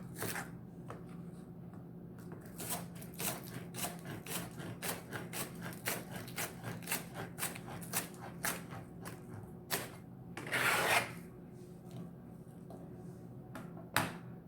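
Repeated short rubbing or scraping strokes, a few a second, then a longer, louder rasp about ten seconds in and a sharp click near the end.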